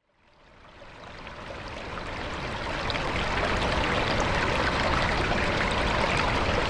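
Flowing stream water, a steady rush with fine trickling, fading in from silence over the first two or three seconds and then holding level.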